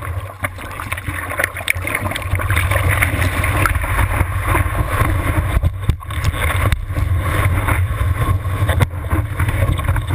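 Seawater rushing and splashing over a board-mounted GoPro housing as a surfer paddles into a wave, pops up and rides it, with a steady low rumble of water buffeting the camera and crackling spray throughout.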